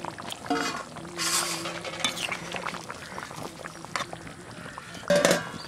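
Metal ladle clinking and scraping against the pot as fried potatoes are stirred into thick, simmering mutton curry, with wet splashing of the gravy. A single louder clank comes about five seconds in.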